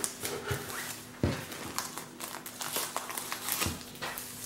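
Clear plastic wrapping of a sticker album pack crinkling and rustling as it is cut open with scissors and handled, with a couple of sharper crackles about a second in and near the end.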